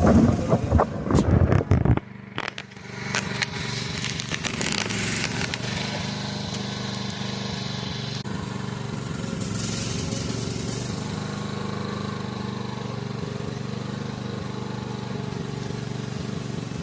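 A few loud knocks and clatter, then, about two seconds in, an engine running steadily at an even pitch.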